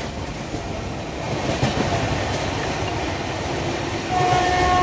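Train running on the track with a steady rumble and wheel clatter; near the end a horn sounds, one held note.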